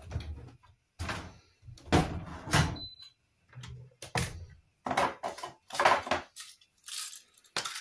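Irregular knocks, clunks and clatters of kitchen things being handled, like cupboard doors and pots being moved, about a dozen in a row with a few heavier thuds.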